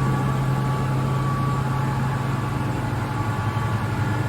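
Kaeser SK25 rotary screw air compressor running steadily at its 8-bar set point pressure: a constant low hum with a faint steady high tone over it.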